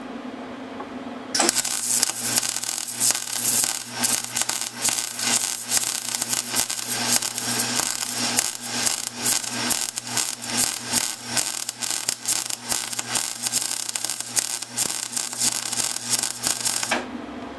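MIG welder arc crackling and sputtering as a weld bead is run on a steel steering shaft. It starts about a second and a half in and stops shortly before the end, with a low electrical hum before and after.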